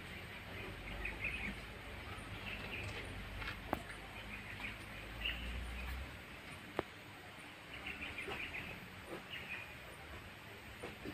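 Small birds chirping in short repeated bursts, over a low rumble, with two sharp clicks about four and seven seconds in.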